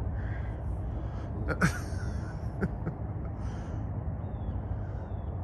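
A golf club striking the ball on a short chip shot: one sharp click about a second and a half in, followed by a fainter click about a second later, over a steady low background rumble.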